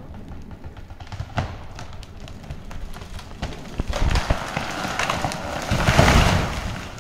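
A few sharp clicks from the lever of a Tirfor hand winch. Then a dieback-infected ash tree gives way: its wood cracks and its trunk and branches crash down in a long crackling rush that is loudest about six seconds in.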